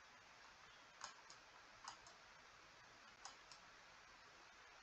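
Near silence broken by about five faint clicks: a stylus tapping on a tablet screen while handwriting.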